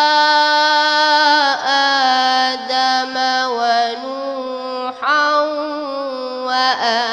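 A boy reciting the Quran solo in melodic tajweed style, holding long ornamented vowel notes in a high young voice, with short breaths about one and a half and five seconds in.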